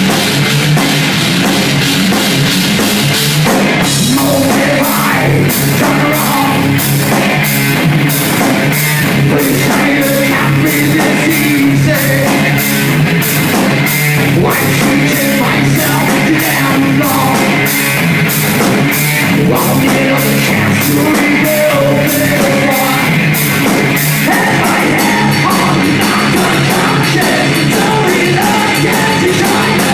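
Heavy metal band playing live: distorted guitars, bass and drums, loud and continuous. Drum and cymbal strikes land about twice a second, coming faster about 24 seconds in.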